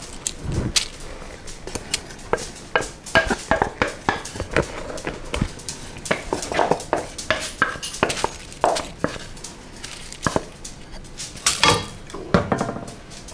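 Wooden spoon knocking and scraping against bowls as melted chocolate is scraped out and stirred into cornflakes in a ceramic mixing bowl. It makes an irregular run of clicks, knocks and scrapes.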